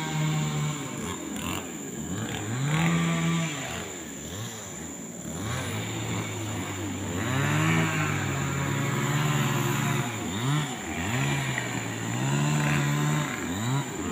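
Small engine revving up and down over and over, its pitch rising and falling in quick swells.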